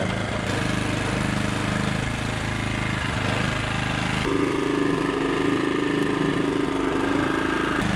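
Small gasoline portable generator powering a zine-making cart, running steadily with a low engine hum. About four seconds in, its tone shifts higher and a little louder, then drops back near the end.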